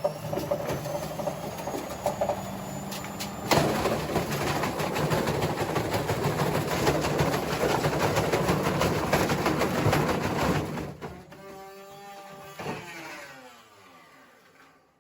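Washing machine spinning hard with a heavy ballast weight loose in the drum, rattling and banging violently, louder from about three and a half seconds in. Near the end the motor cuts and the drum winds down with a falling whine as the machine coasts to a stop, apparently wrecked.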